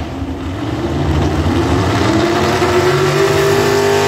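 A vehicle engine revving up, its pitch rising slowly and then holding a steady note that grows stronger near the end.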